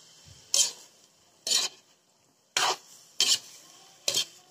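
A metal spoon scraping and stirring chicken pieces in a metal wok: five short scrapes, roughly a second apart.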